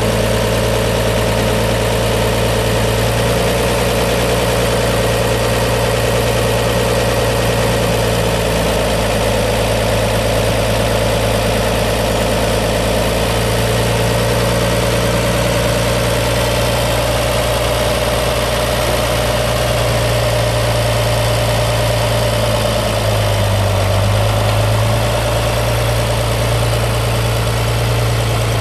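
1966 Farmall 656 tractor's International 4.3-litre six-cylinder gas engine running steadily, its note rising briefly about 23 seconds in.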